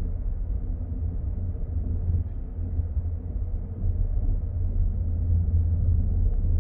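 Large twin-turbine transport helicopter hovering low close by, its rotor and engines a steady deep rumble that grows a little louder about four seconds in.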